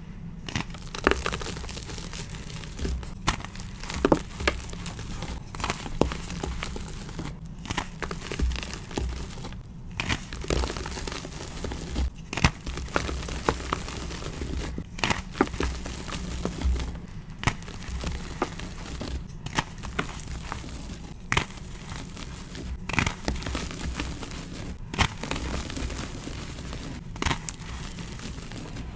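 Blocks of gym chalk topped with glittery charcoal powder, crushed and squeezed in bare hands and crumbling into powder: sharp crunches and snaps every second or two over a continuous soft gritty crumble.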